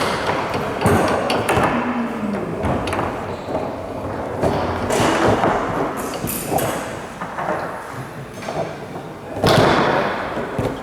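Table football play on a Tornado table: a string of sharp knocks and thuds as the ball is struck by the players' men and hits the walls, and the rods bang against the table, with the loudest burst of knocks near the end.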